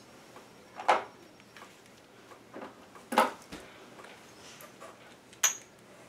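Three sharp clicks of small metal hardware being handled, about a second, three seconds and five and a half seconds in, with a fainter one in between.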